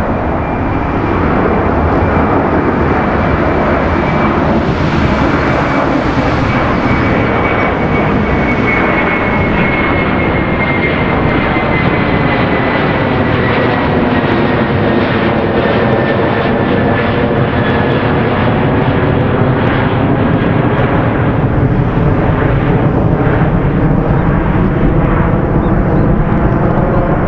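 Airbus A330 jet engines at takeoff thrust as the airliner climbs out, a loud steady jet noise. A whining engine tone slowly falls in pitch through the first two-thirds.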